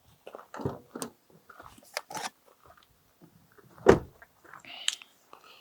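Camera gear being handled while a lens is swapped for an 800 mm telephoto: a run of clicks, knocks and rustles, with one loud knock about four seconds in.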